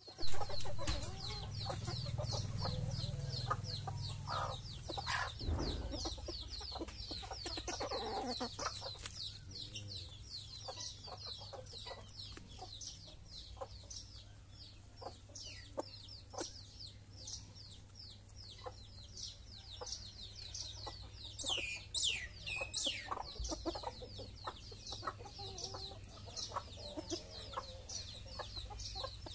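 Backyard chickens and roosters clucking as they peck at scattered grain, with a fast, high chirping throughout. A sharp knock right at the start is the loudest moment.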